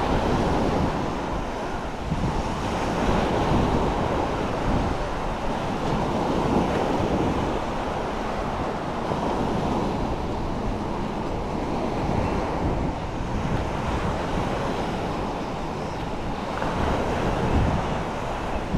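Surf breaking and washing on a sandy shore, rising and falling in slow swells, with wind buffeting the microphone.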